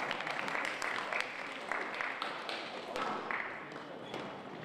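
Spectators applauding a point that has just been won, with a few voices mixed in.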